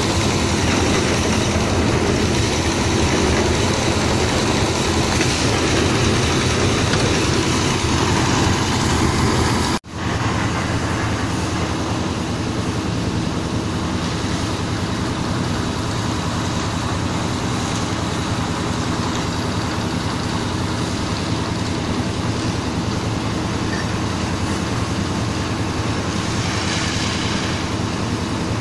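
An engine running steadily without a break in pace. It drops out for an instant about ten seconds in and comes back slightly quieter.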